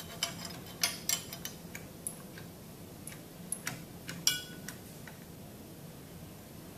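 Scattered light metallic clicks and taps from stainless steel pump fittings being handled and fitted by hand. The loudest clink, about four seconds in, rings briefly. The clicks thin out toward the end over a faint steady low hum.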